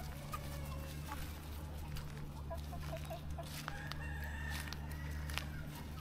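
A free-range chicken flock clucking, with a rooster crowing in one drawn-out call about halfway through, over a steady low hum.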